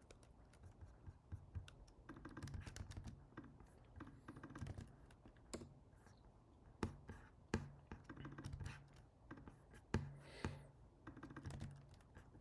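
Faint typing on a computer keyboard in short runs of keystrokes, with separate single clicks in between.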